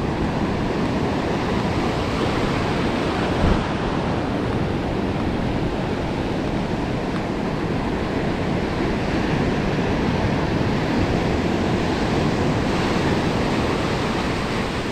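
Ocean surf breaking and washing on a beach, a steady rushing noise with wind buffeting the microphone; a single short thump about three and a half seconds in.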